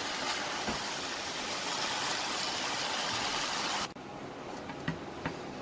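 Chow mein sizzling in a hot wok as it is tossed with a wooden spatula on high heat, a steady hiss that cuts off suddenly about four seconds in. After that, a few light clicks of the spatula against the wok.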